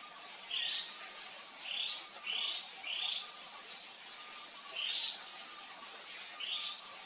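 Javan fulvetta calling: about seven short upward-sweeping chirps at irregular intervals, over a steady high hiss of forest background.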